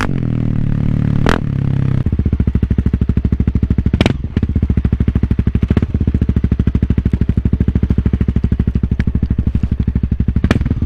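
Honda CRF250L single-cylinder engine through an FMF aftermarket exhaust. The engine note shifts for the first two seconds, then settles into an even, steady putter at low revs. A few sharp knocks cut through it.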